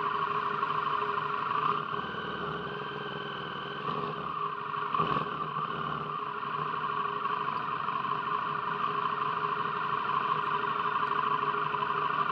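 A steady engine drone at a nearly constant pitch.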